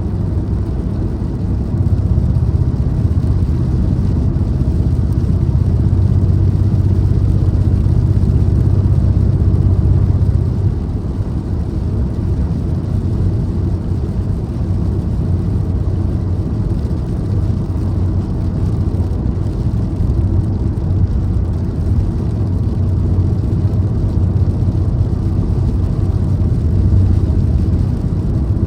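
Car driving at speed, heard from inside: a steady low engine and road drone with tyre noise.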